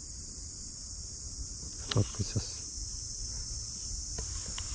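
Steady high-pitched shrilling of an insect chorus, with a few short knocks about two seconds in and two faint clicks near the end.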